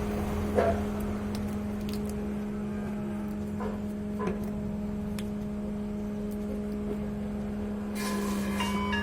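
A steady low hum runs throughout, with a few light clicks and knocks in the first few seconds. Music with stepped notes comes in near the end.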